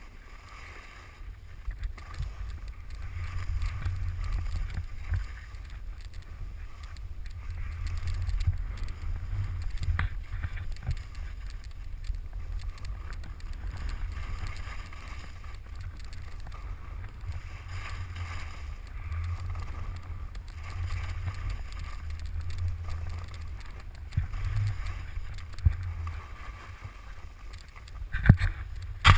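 Wind rumbling over the microphone of an action camera as a skier descends a piste, with skis hissing and scraping over the snow in surges as he turns. A few sharp knocks near the end.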